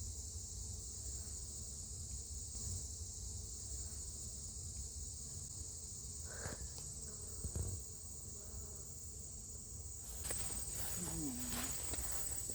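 Steady, high-pitched drone of an insect chorus, with no break; near the end the drone takes on a faint pulsing and a few rustles or steps come in over it.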